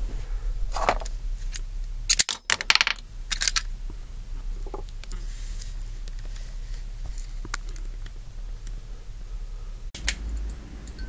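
Scattered clicks and handling knocks over a steady low hum, with a burst of sharp clicks about two to three seconds in.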